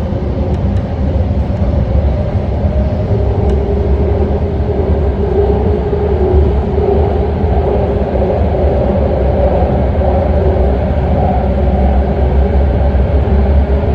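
BART train running between stations, heard from inside the car: a steady, loud rumble of wheels on the rails, with a humming tone joining about three seconds in.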